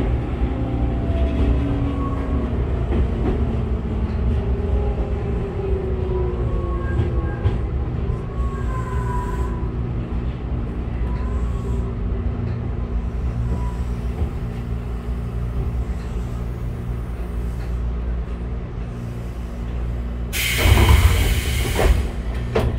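Tobu 6050 series electric train heard from inside the car while running: a steady low rumble, with motor and gear whine falling in pitch over the first few seconds as the train slows. Near the end there is a loud burst of hiss lasting about a second and a half.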